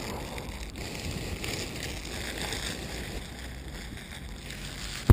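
Wind buffeting the microphone in a steady low rumble, with a faint crinkle of a clear plastic bag being pulled open near the start.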